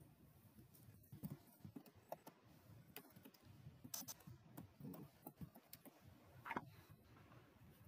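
Faint computer keyboard typing: irregular key taps, with one louder tap late on.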